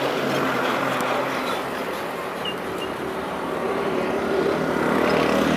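A steady engine hum, growing louder near the end.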